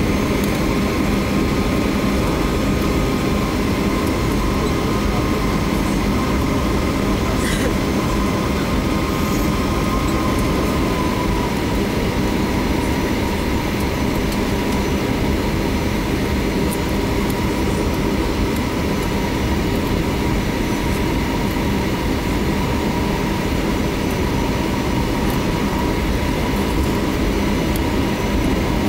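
Steady cabin noise of a Boeing 737-800 taxiing: its CFM56-7B engines running at low taxi thrust with a steady hum and a thin whine, over a low rumble from the airframe rolling on the taxiway.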